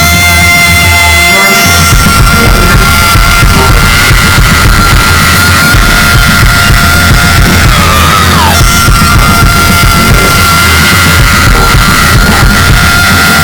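Loud rock or metal band music with distorted guitar, bass and drums, and a sustained high tone over it. About eight seconds in, a falling pitch glide.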